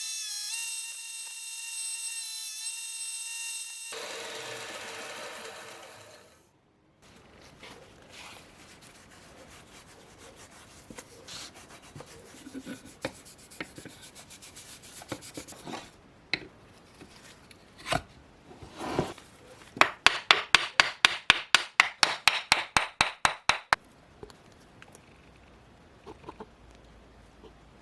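Wood being worked by hand with an abrasive tool: scattered scraping strokes, then a fast, even run of about twenty back-and-forth strokes near the end. Background music fades out at the start.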